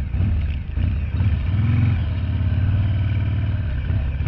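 Harley-Davidson V-twin motorcycle engine running at low road speed, its note swelling briefly about one and a half seconds in.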